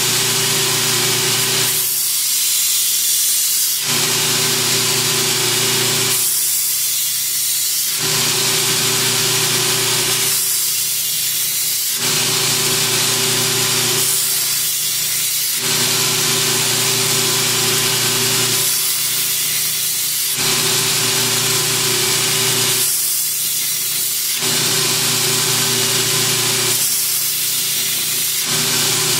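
Belt grinder running on a fresh 80-grit silicon carbide belt: a steady motor hum under a harsh grinding hiss as the steel kukri blade is worked against the belt in repeated passes, the grinding easing off briefly about every four seconds between passes. The blade's flat, edgeless bevel is being reprofiled.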